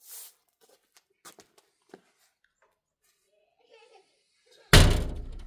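A single loud thud near the end, dying away quickly, after a few faint clicks.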